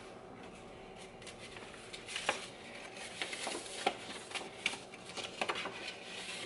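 Paper rustling and crinkling as a card and a folded paper pamphlet are handled and opened, in a string of short, irregular rustles and light taps.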